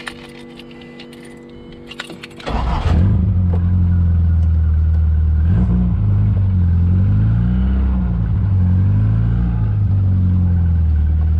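Rover K-series engine in an MG Midget started on the key: after a faint steady hum, it catches abruptly about two and a half seconds in. It then runs loudly, its pitch rising and falling as the car is driven off.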